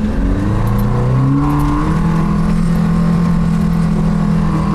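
Lada Niva's reworked 1.9-litre, 120 hp engine, heard from inside the cabin, pulling up a hill in low-range second gear. The revs rise over the first second or so, then hold steady under load.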